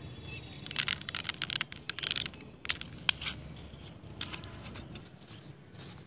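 Dense crackling and rustling of dry grass and twigs, starting about a second in and lasting about two seconds, with a few sharp clicks a moment later, over a steady low outdoor background.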